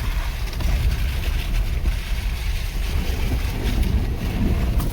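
Off-road SUV crawling a rutted dirt trail in four-wheel low: a steady low rumble of engine, drivetrain and tyres, with wind buffeting the microphone.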